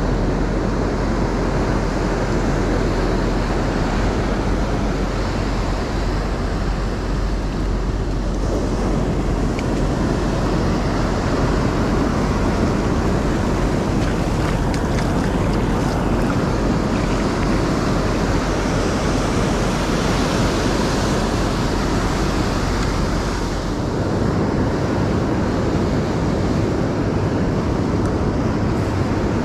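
Ocean surf washing on a sandy beach, a steady rush of waves, with wind rumbling on the microphone.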